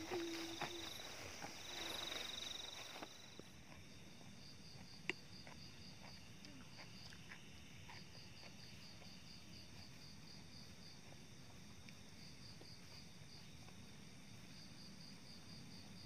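Insects chirping at night: a faint, high, rapidly pulsing chirp that comes in runs of a few seconds with short gaps. For the first three seconds it sits under louder rustling of people moving through grass, and there is one sharp click about five seconds in.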